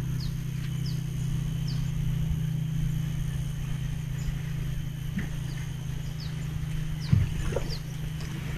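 A steady low motor hum, with short high falling chirps repeating every half second to a second and a single knock about seven seconds in.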